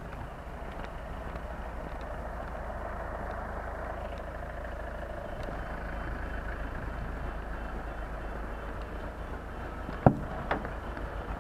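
Fire truck engine running close by with a steady low rumble. About ten seconds in there is a sharp clack and a smaller one just after, like a hand on the cab door.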